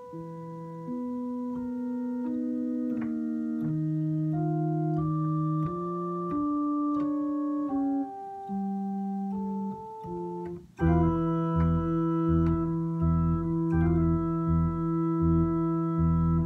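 Organ playing slow music: a quieter line of held notes moving over a sustained accompaniment, then about eleven seconds in it turns suddenly louder and fuller, with rich held chords over a steadily repeated low bass note.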